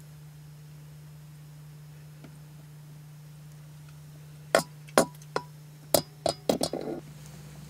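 A low steady hum, then from about four and a half seconds in, a run of about eight sharp, irregular knocks and clicks lasting roughly two seconds.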